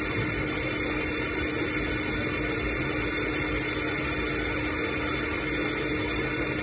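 Metal lathe running steadily while a boring bar cuts the inside bore of a spinning metal cylinder: an even machine hum with one steady low tone.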